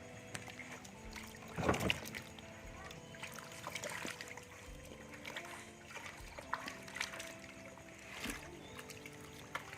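Background music of held notes moving from pitch to pitch, with scattered short splashes of water, the loudest about a second and a half in.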